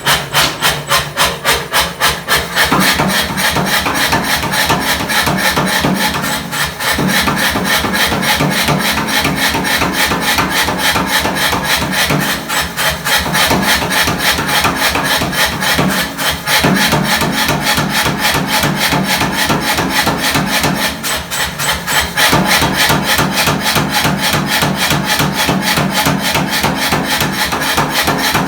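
Fast, even hammering on a hot steel-and-nickel Damascus billet, about four to five blows a second, kept up without a break.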